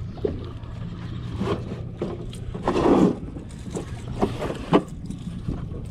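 Boat's outboard motor idling steadily under scattered knocks and clicks of gear on the hull. A short loud rushing burst comes a little before halfway, and a sharp knock near the end.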